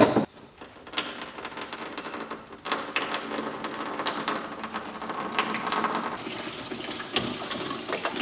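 Engine coolant draining from a 1980 Cadillac Coupe De Ville's radiator drain petcock, opened after about 30 years: a steady splashing run of liquid that grows louder about two and a half seconds in, with a few light clicks.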